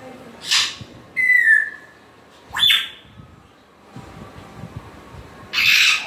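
African grey parrot calling: a harsh squawk, then a falling whistle, then a quick upward-sweeping whistle, and another harsh squawk near the end.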